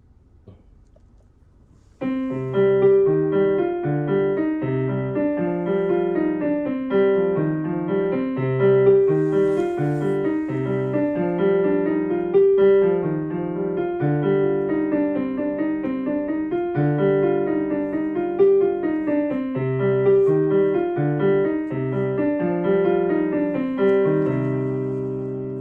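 Background piano music: a melody of separate notes that comes in about two seconds in after a short near-silence and plays on steadily, fading out at the end.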